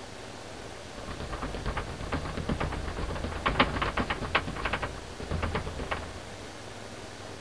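Paintbrush dabbing and tapping against a stretched canvas on an easel: a run of quick, irregular taps starting about a second in and stopping about a second before the end, over a steady hiss.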